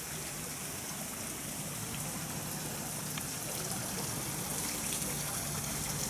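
Steady hiss of falling water, getting a little louder from about halfway through.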